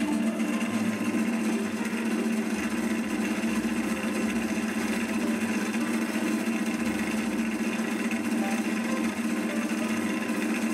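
Electric motor of an Enkor Korvet-74 woodturning lathe running at speed, a steady, unchanging hum.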